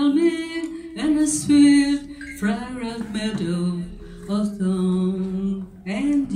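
Women singing a slow love song live into microphones, holding long notes between short sung phrases.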